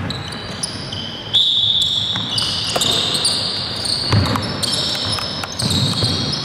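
Shoes squeaking on a hard indoor court during play: many short high squeals that start and stop, with a few dull thuds of a bouncing ball about four and six seconds in.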